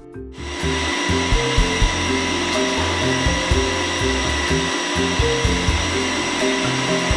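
Wheel lathe turning a railway wheel: a steady machining noise with a steady high whine that starts suddenly just after the start, as the single-point tool cuts the rotating steel wheel tread. A background music bass line moves underneath.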